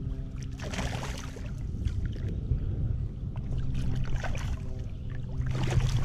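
A hooked carp splashing at the water's surface as it is brought to and scooped into a landing net, in two bursts: about a second in and near the end. Underneath runs a steady low hum from the kayak's motor.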